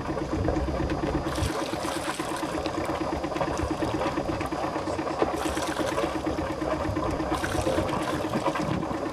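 Sailing yacht's inboard engine running at idle, a steady rapid throb, with intermittent water noise over it.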